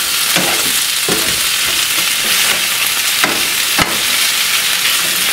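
Chicken breast cubes sizzling steadily as they fry in oil in a nonstick pan, with a few clicks and scrapes of a metal slotted spoon stirring them. The sharpest click comes about four seconds in.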